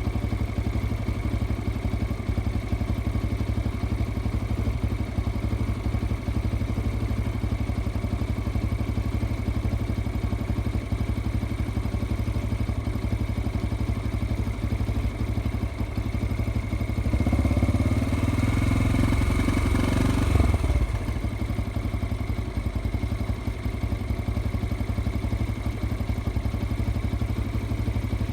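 A 2005 Yamaha XT 125 X's single-cylinder four-stroke engine idles steadily. About two-thirds of the way in, it is revved once for a few seconds, then drops back to idle.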